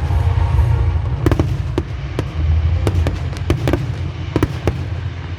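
Fireworks display: a quick, irregular run of sharp bangs and pops, about a dozen in a few seconds, over a steady low rumble.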